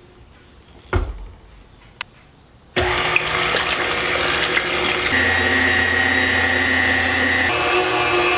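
Electric mixer switched on about three seconds in, then running steadily at speed while beating the cheesecake filling. Before it starts there is a short knock about a second in and a click at two seconds.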